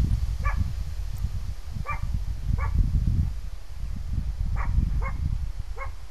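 A dog barking: six short barks at uneven intervals, over a constant low rumble.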